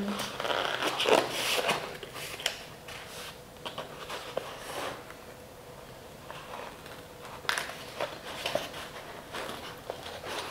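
Cardboard shipping box being pulled open by hand: tearing and rustling cardboard, loudest in the first couple of seconds, then scattered crackles and scrapes as the flaps are worked loose.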